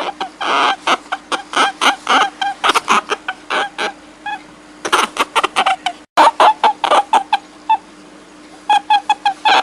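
A small animal giving rapid runs of short, high-pitched squeaking calls, several a second, with brief lulls between runs, over a faint steady hum.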